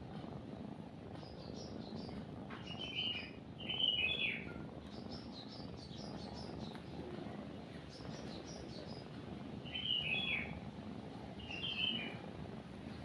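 Several birds chirping in short repeated phrases, the loudest groups a few seconds in and again near the end, over the steady low purring of a cat.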